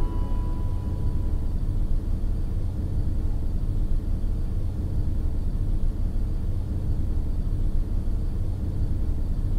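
Steady low rumble of outdoor background noise, fluttering unevenly, with the song's last note fading out in the first second.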